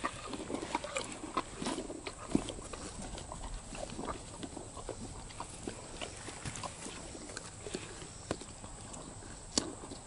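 Donkeys eating close by: irregular soft crunching and clicking of chewing and tearing at food, with a sharper click near the end.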